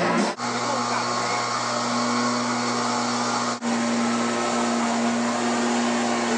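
A fire truck's water pump running steadily, a constant low hum under the hiss of high-pressure hoses spraying water. The sound drops out briefly twice and carries straight on.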